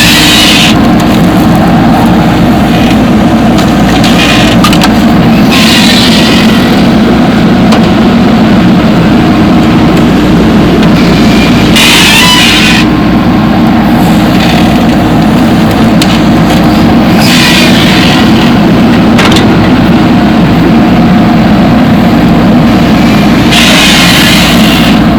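Heavy diesel engine of a JCB 3DX backhoe loader running steadily under working load while loading sand. A short burst of hiss comes about every six seconds.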